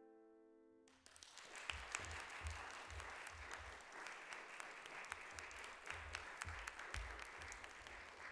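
The final chord of an August Förster grand piano dies away, and about a second in an audience breaks into applause that carries on steadily.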